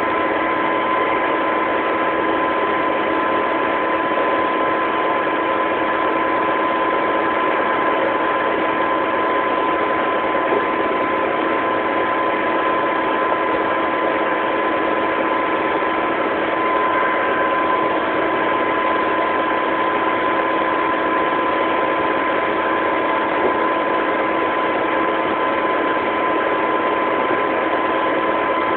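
New Holland TX68 combine harvester driving on the road, its engine and drive running at a steady speed: a constant drone with a high steady whine over it, unchanging throughout.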